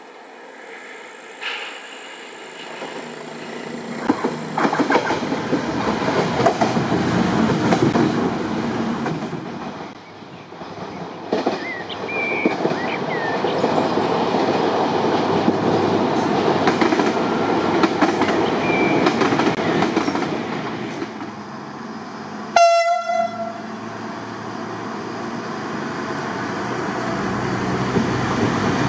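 Siemens Desiro Classic diesel multiple unit (DB Class 642) running over a steel bridge: a rumbling run with sharp clicks as the wheels cross rail joints. About two-thirds of the way in the railcar gives one short horn toot, after which its diesel engine is heard running steadily.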